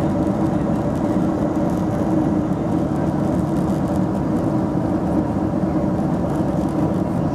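Cabin noise of a Boeing jet airliner at cruise: the steady drone of the turbofan engines and rushing airflow, with a faint constant hum running through it.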